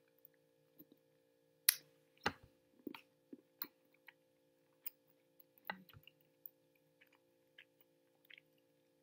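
Faint, scattered mouth clicks and smacks of someone chewing a piece of hard 55% cacao dark chocolate, with a sharper click a little under 2 seconds in. A faint steady hum lies underneath.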